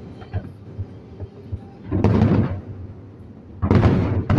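Firework shells bursting overhead: a few small pops, then two loud booms, about two seconds in and again near the end.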